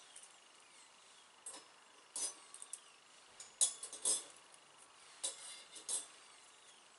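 Thin metal skewers being set down into the slots of stainless steel holders on a camping stove: a series of light, irregular metallic clinks, each with a short ringing, the two loudest about three and a half to four seconds in.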